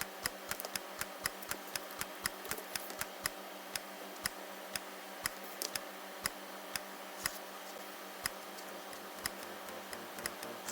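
A run of light, sharp clicks at uneven spacing, a few a second, over a faint steady hum.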